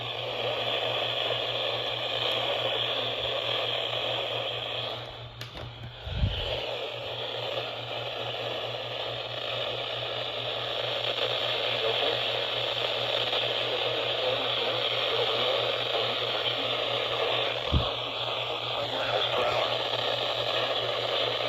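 Radio receiver hiss and static with a steady low hum beneath it and no voice on the channel. Two short low thumps come through, one about six seconds in and another near eighteen seconds.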